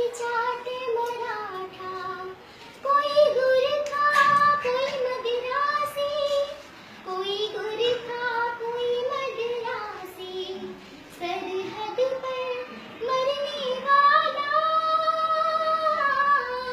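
A young girl singing a Hindi patriotic song in a single voice, in phrases with long held, wavering notes.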